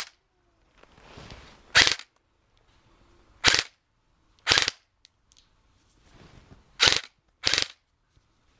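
Airsoft rifle fired in five short bursts, each lasting a fraction of a second, spaced one to two seconds apart.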